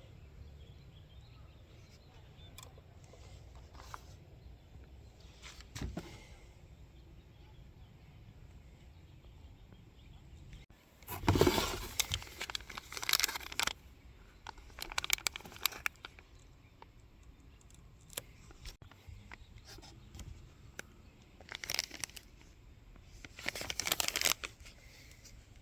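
Packaging being handled during an unboxing: crinkling and tearing of plastic and cardboard in several short bursts, the loudest about halfway through.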